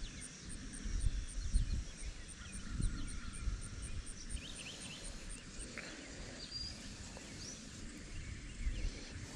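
Outdoor ambience: an uneven low rumble of wind on the microphone that swells several times, with faint, scattered bird chirps.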